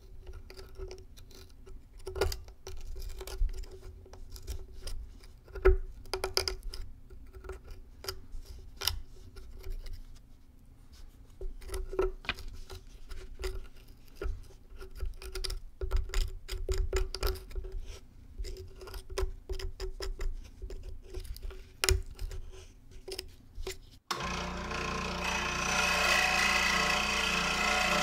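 A craft knife scraping and picking inside the cardboard tube of a ground bloom flower firework, digging out black powder in irregular scratches and small clicks. About 24 seconds in this gives way abruptly to a scroll saw running steadily, its blade cutting into the cardboard tube.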